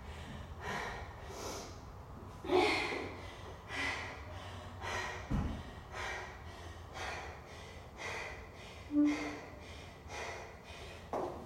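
A person breathing hard and fast, recovering from a workout, with short breaths roughly two a second. A soft low thump about five seconds in and a brief voiced exhale about nine seconds in.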